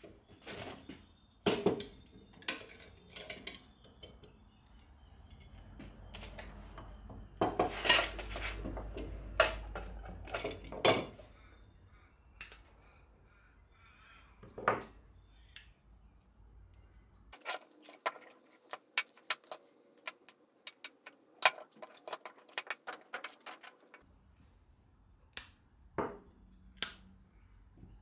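Steel C-clamps being loosened and knives with wooden handle scales lifted out of them, metal clanking and clinking against metal and the wooden bench in irregular knocks. A run of many light, quick clinks comes after the halfway point.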